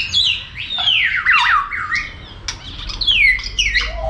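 Several birds calling over one another, loud repeated calls that each slide down in pitch, with different birds giving different calls.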